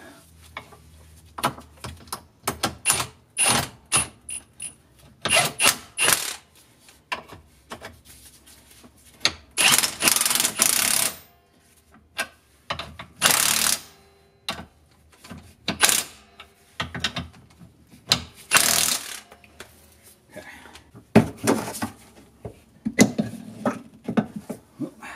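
Metal clinks, knocks and rattles of bolts, nuts and tools against the steel leaf-spring mounting plate under a golf cart as the spring hardware is fitted, with several louder mechanical bursts about a second long around the middle.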